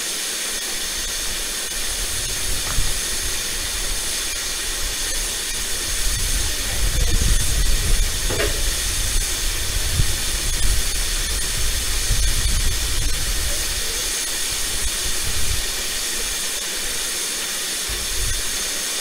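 Steam locomotive hissing steadily, with a low rumble that swells in the middle and dies back.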